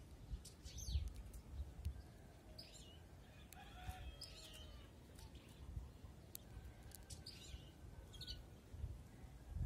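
A caged domestic canary gives a few short, sharp chirps, several seconds apart, over a low rumble of wind on the microphone. A rooster crows faintly in the distance about four seconds in.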